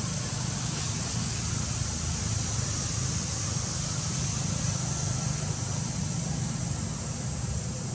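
Steady outdoor background noise: a low rumble under a constant high-pitched hiss, with no distinct calls or knocks.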